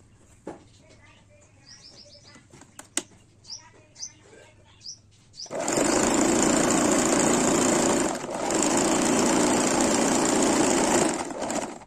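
Singer sewing machine running fast in a loud, even run of about six seconds, with a brief pause in the middle. Before it starts, a few short bird chirps and a single click.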